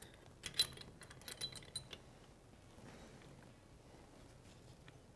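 Faint, light metallic clicks and clinks of a steel shift fork being fitted onto the transmission gears and shift drum of a KTM 690 / Husqvarna 701 engine in its crankcase half. The clinks come in a small cluster over the first two seconds.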